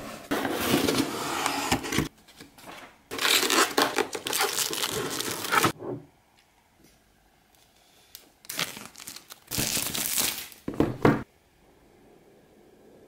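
Cardboard shipping box being opened and its plastic packing crinkling and tearing as the contents are lifted out, in three spells of rustling with short pauses between.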